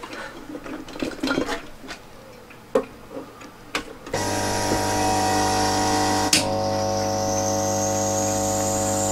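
A few small handling clicks and knocks, then about four seconds in a hot-air rework station's blower switches on and runs steadily, with a low hum and an airy hiss. One sharp click sounds a couple of seconds after it starts.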